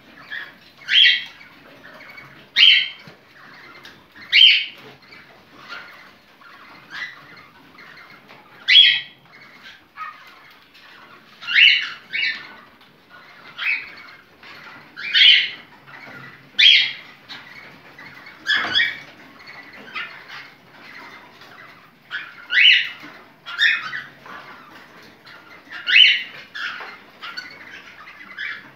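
A bird calling over and over, short sharp calls every second or two with fainter calls between them.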